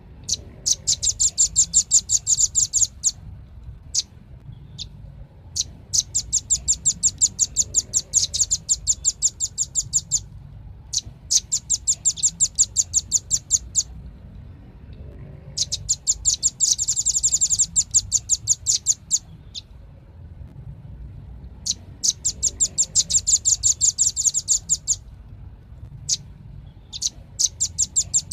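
Velvet-fronted nuthatch (red-billed 'rambatan') calling in fast trills of sharp, high chit notes, about ten a second. The trills come in bursts of two to four seconds, with short pauses and a few single notes between them.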